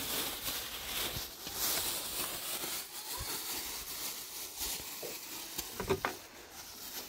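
Thin plastic bag crinkling and rustling as it is handled, with flatbread packed into it and the bag twisted shut. The crinkling is densest in the first three seconds and thins out after.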